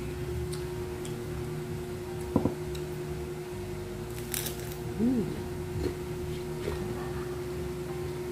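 A crunchy bite into deep-fried crispy crab about four seconds in, followed by a few short mouth sounds while chewing, over a steady low hum.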